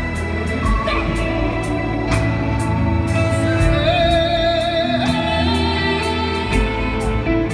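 Live music: piano and upright double bass playing a slow song, with a long held sung or melodic line over low, pulsing bass notes.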